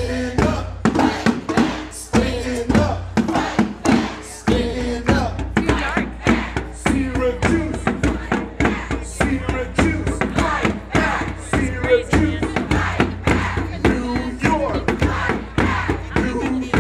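Drums beaten in a steady, fast rhythm, with singing over them.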